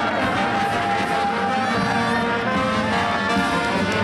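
High school pep band playing, with brass horns and saxophones holding sustained notes.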